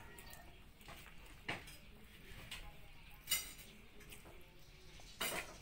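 Eating sounds at a table: three short clicks, about a second and a half, three seconds and five seconds in, as two people eat rice and side dishes with their hands.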